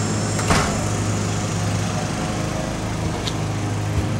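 A small engine running steadily, with a short knock about half a second in and a lighter one near the end.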